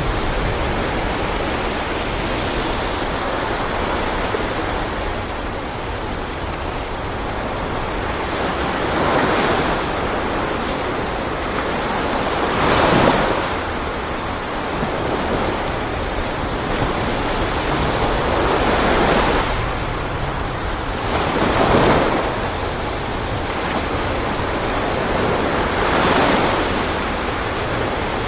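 Sea waves washing in a steady rush, surging up five times a few seconds apart.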